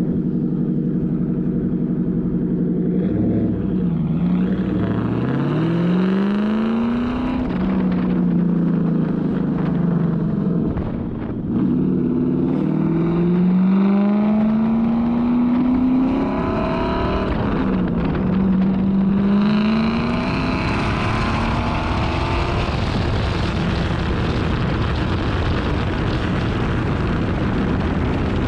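Car engine being driven hard through the gears, freshly fitted with new spark plugs and an ignition coil to cure a misfire. Its pitch climbs and drops back several times as it shifts, then settles into a steadier run with a loud rushing hiss from about twenty seconds in.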